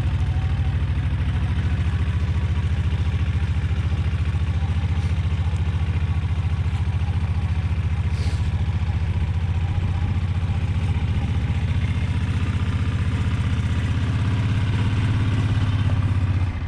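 Engine of a Mule side-by-side utility vehicle running steadily with an even low pulse. It gets a little louder near the end, then eases off.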